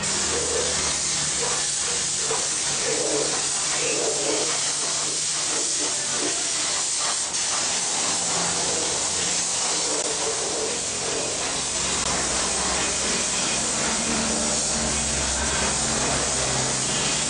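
Compressed-air paint spray gun hissing steadily as it sprays black paint onto a vehicle frame, with a low steady hum underneath that gets stronger in the second half.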